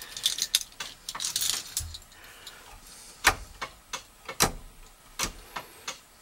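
Keys jangling on the ignition key of a 1969 VW Beetle, with sharp clicks: a cluster in the first two seconds, then single clicks about a second apart.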